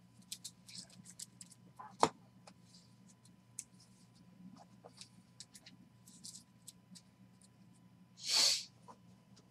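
Trading cards being handled and sorted on a table: light rustles and small clicks, with a sharp tap about two seconds in. A short breathy hiss comes near the end.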